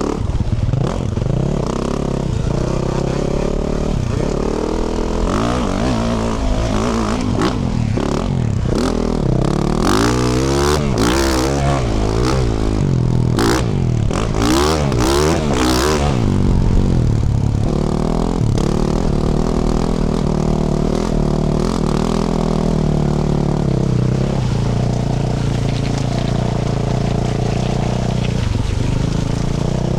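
2024 Yamaha YZ450F's single-cylinder four-stroke engine, through a Yoshimura RS-12 exhaust, revving up and down under load while riding rough off-road terrain. A busy stretch of quick throttle changes with several sharp crackles runs through the middle, and the engine settles into steadier running after that.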